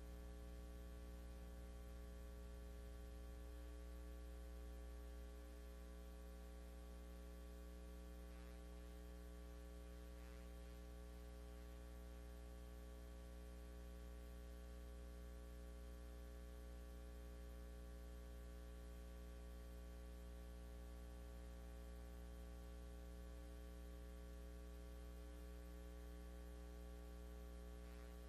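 Faint, steady electrical mains hum on the audio line, a low buzz with a ladder of higher tones above it and nothing else heard.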